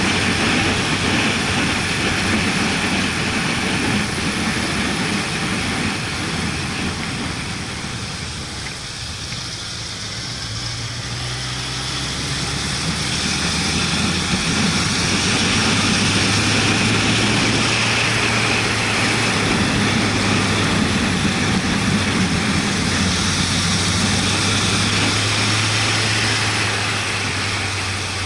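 Motorcycle on the move, engine running under heavy wind rush over the microphone. The sound eases off around eight to ten seconds in, then the engine pulls harder and it grows louder again.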